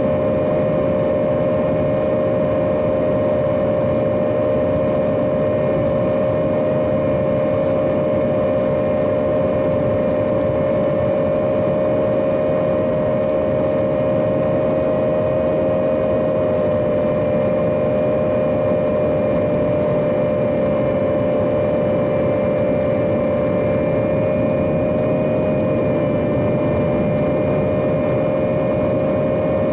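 Mobula 7 micro FPV quadcopter's small brushless motors and propellers buzzing in flight: a loud, steady high whine over a rough hiss, its pitch wavering only slightly.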